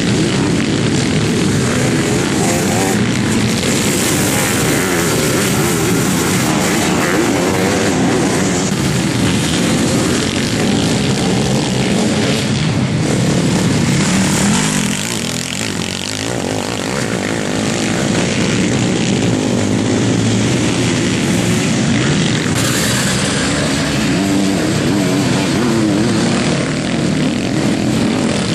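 Sidecar motocross outfits' engines racing around a dirt track at high revs, a loud continuous drone that eases briefly about halfway through.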